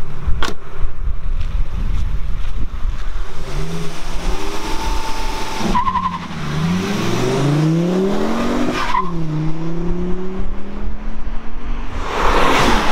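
1999 Volvo C70's 2-litre turbocharged five-cylinder engine pulling hard at full throttle. It revs up through the gears, with the pitch dropping at two upshifts about 6 and 9 seconds in. A loud rushing noise comes near the end.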